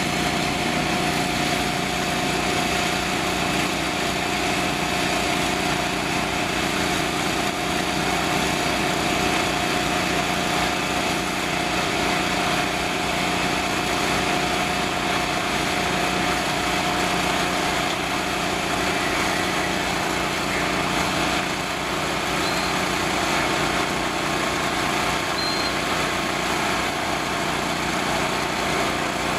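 Fire engines running at idle: a steady, unbroken engine drone with a constant hum on top.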